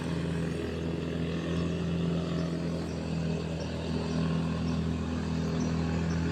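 Steady low engine drone running at constant speed, with a steady wash of noise over it.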